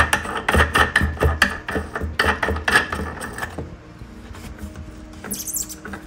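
Background music with a quick, steady beat that cuts off about halfway through, followed by faint handling noise.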